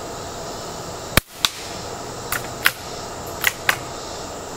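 A .22 rifle firing an Aguila .22 Colibri round, a low-powered 20-grain load, a little over a second in: a short, sharp pop rather than a full rifle crack, followed a quarter second later by a second, fainter sharp sound. Four lighter clicks follow in two quick pairs.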